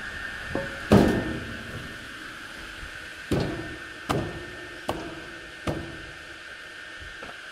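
Homemade firewood circular saw running free with a steady high whine. A loud clunk comes about a second in, followed by a few sharper knocks spaced under a second apart.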